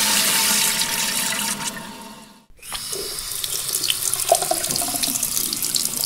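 Bathroom tap water running, fading out about two seconds in. After a brief gap a second, quieter stream of running water begins, with small splashes and drips.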